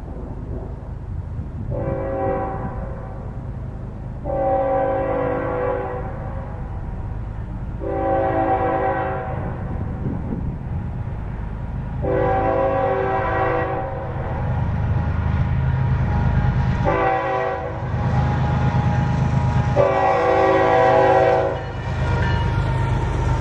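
Nathan K5HL five-chime locomotive air horn sounding a chord in a series of six blasts, mostly long with one short one. Beneath them is the steady low rumble of the train, growing louder toward the end.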